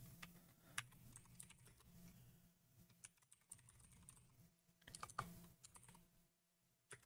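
Faint computer keyboard typing: irregular individual keystrokes, with a short pause about a second before the end.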